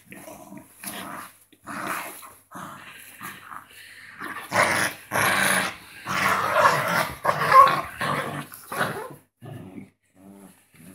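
Small dogs growling as they play-fight, in irregular bursts that are loudest around the middle.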